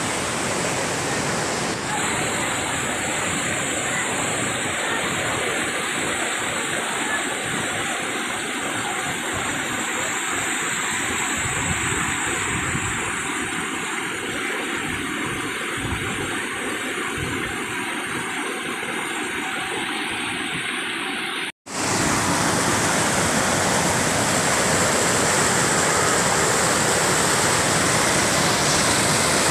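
Steady rushing of a waterfall and the white-water cascade tumbling over boulders below it. The sound cuts out for a moment about two-thirds of the way through, then comes back a little louder.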